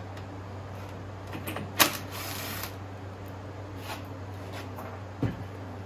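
Scattered knocks and clicks of hand work, the loudest about two seconds in, followed by a short hiss, with another knock near the end that has a quick falling tone; a steady low hum lies under it all. The go-kart's 49cc engine is not running.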